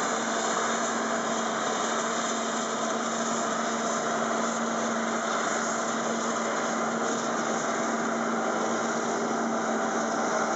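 Claas Jaguar 860 self-propelled forage harvester chopping maize: a steady drone of engine and chopping machinery, with one constant hum and no change in level.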